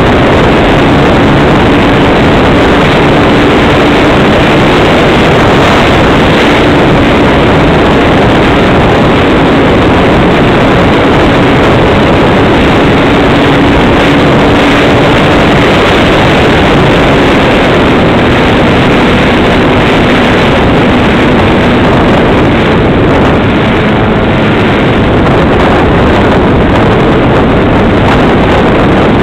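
Motor and spinning propeller of a radio-controlled model airplane in flight, heard from a camera mounted on the plane: a loud, steady drone mixed with wind rushing over the microphone. A faint hum sits under the noise, its pitch dropping a little in the second half.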